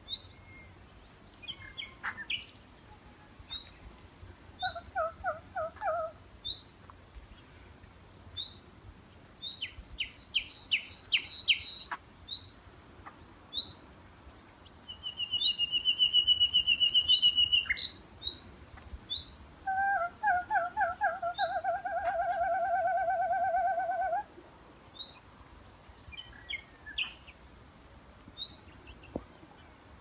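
Common nightingale singing from a hedge in separate phrases: a fast run of sharp repeated notes, a long trilled whistle, and scattered short high notes. Lower, buzzier trilled phrases come twice between them.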